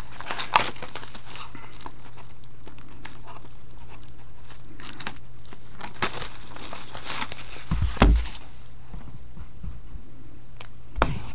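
Packaging crinkled and torn as a trading-card box is opened, with scattered handling clicks and a soft thud about eight seconds in, over a steady low hum.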